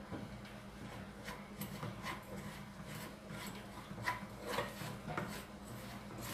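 Wooden spoon stirring and scraping dry granulated sugar around a small saucepan: faint, irregular gritty scrapes, about one or two a second. The sugar is being heated dry to caramelize.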